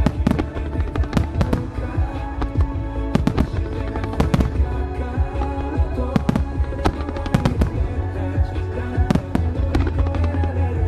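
Nomura Fireworks' wide starmine barrage: many fireworks shells bursting one after another in quick, irregular clusters of sharp bangs, over music.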